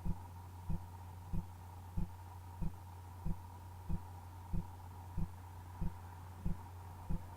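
A steady low hum with a soft, low thump that repeats evenly, about three every two seconds.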